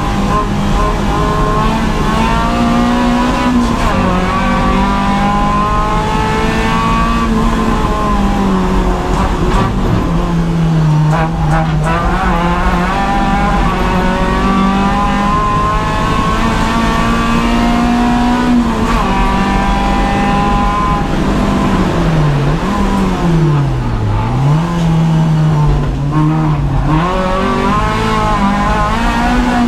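Renault Clio 172's 2.0-litre four-cylinder engine heard from inside the cabin at track pace, revving up through the gears and dropping in pitch at each change. About twenty-two seconds in, the pitch falls and rises several times in quick succession as the car brakes and downshifts through corners.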